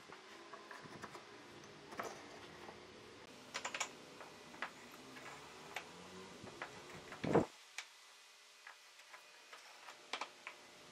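Scattered light clicks and taps of small hard objects being handled, some in quick little clusters, with one louder knock a little past the middle.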